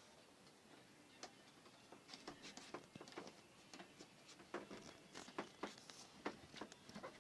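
Faint, irregular small clicks and taps of handling. They begin about a second in and come more often toward the end.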